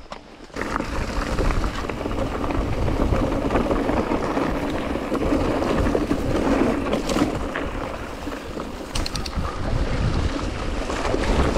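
Mountain bike riding fast down a rocky trail: wind rushing over the camera microphone, with the tyres and bike knocking and rattling over stones. The noise is steady after a brief lull about half a second in.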